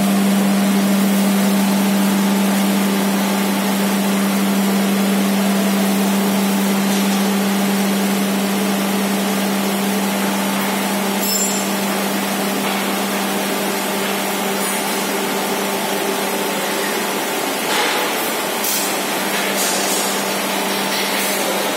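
An industrial mixer's lift motor running with a steady hum as it raises the mixing head and beater out of the stainless-steel bowl, then stopping near the end.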